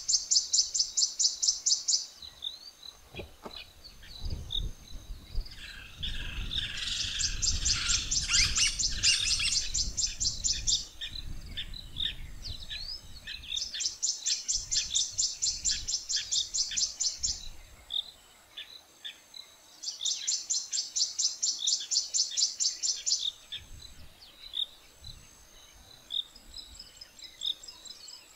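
A bird calling in bursts of rapid, high repeated notes, about five a second, each burst lasting three to four seconds and coming four times, over a faint steady high insect whine. A low rumble runs underneath from about four to eleven seconds in.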